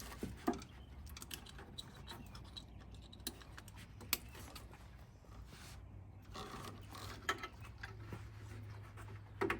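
Wiring harness connectors being handled and plugged together: scattered light clicks and rubbing of plastic and wire, over a faint low steady hum.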